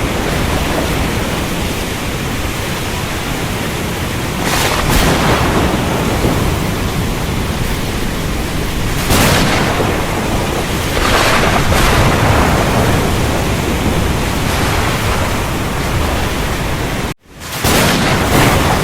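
Thunderstorm ambience: steady heavy rain hiss over a continuous low rumble, swelling briefly every few seconds. About 17 seconds in the sound drops out abruptly for a moment and then resumes, an edit or loop join in the track.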